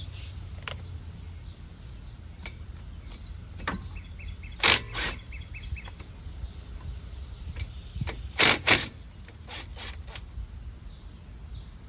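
Brake parts and tools being handled: a few sharp clacks and scrapes, two loud pairs about five and eight and a half seconds in, over a steady low hum. The brake pads are being refitted with their forgotten clips.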